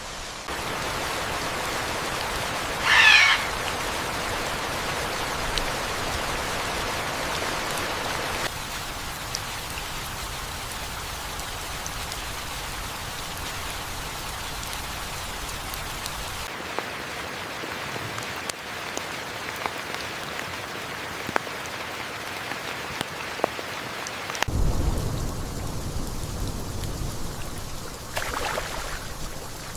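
Steady rain falling, its sound changing abruptly several times. A short loud animal call cuts through about three seconds in, and a low rumble sets in near the end.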